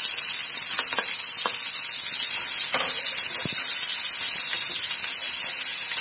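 Chopped onions sizzling in hot oil in a non-stick frying pan as they are stirred with a spatula, a steady frying hiss with a few light ticks of the spatula against the pan.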